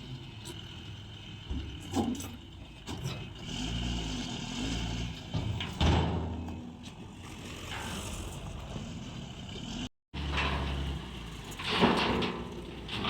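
Excavator's diesel engine running, with several sharp knocks and clanks. The loudest come about six seconds in and near the end.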